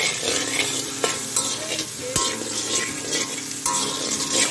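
Raw papaya cubes sizzling in sesame oil in an iron kadai, with a perforated metal spatula scraping and knocking against the pan as they are stirred.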